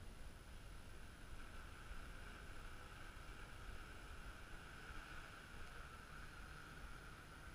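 Faint buzz of a drone's motors and propellers in flight, growing stronger from about a second in, over a low rumble of wind on the microphone.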